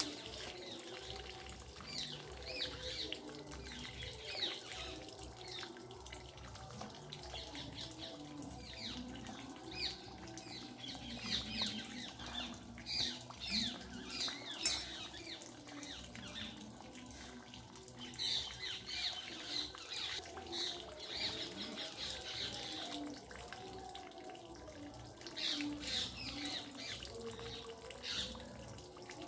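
Small birds chirping in repeated bursts of short, quick, high calls. One sharp click sounds about halfway through.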